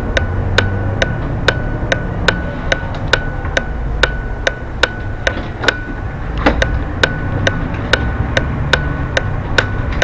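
A bus's turn-indicator relay ticking, about two clicks a second in an alternating tick-tock, as the bus signals at a roundabout. Under it runs the low rumble of the bus's engine and tyres.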